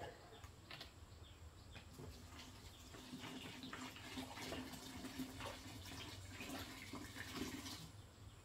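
Rice liquor poured from a bottle into a container of dried medicinal herbs: a faint, steady pouring trickle that starts about two seconds in and stops shortly before the end.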